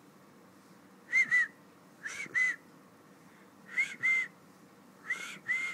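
A person whistling four short two-note calls, about one every one and a half seconds. Each note is a brief, breathy tone that rises and falls.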